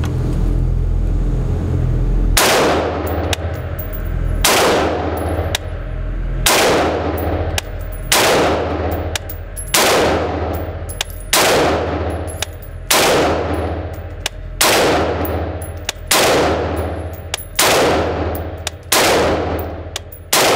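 Beretta ARX 100 5.56 rifle fired in slow single shots, about a dozen spaced one to two seconds apart, starting about two seconds in. Each report is loud and echoes through the indoor range.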